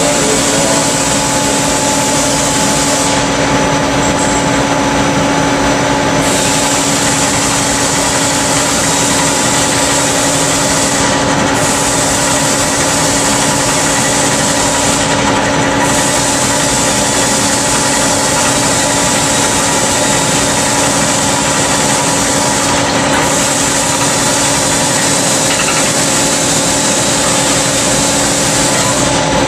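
CNC lathe running a live-tooling machining operation: a steady machine hum with a constant tone, over a high hiss that briefly fades and returns several times.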